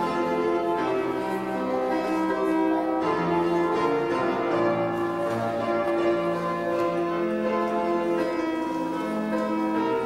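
Slow instrumental hymn music: a keyboard instrument playing sustained chords, one held note-cluster giving way to the next about every second.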